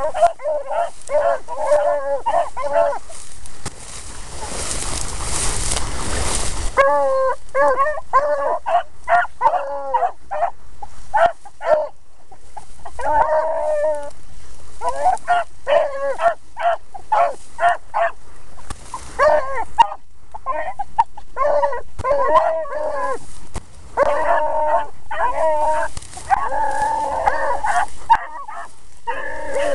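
Three beagles baying as they trail scent, their cries coming in quick overlapping runs, some short and some drawn out. About four seconds in, a loud rustle of dry tall grass covers them for around three seconds.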